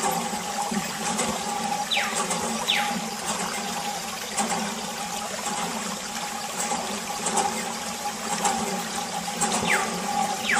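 Steady running or rushing water, with a few brief high whistles that fall in pitch, in two pairs.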